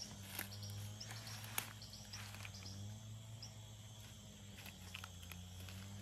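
Forest ambience: insects calling in several steady high tones over a low steady hum, with a few short sharp clicks.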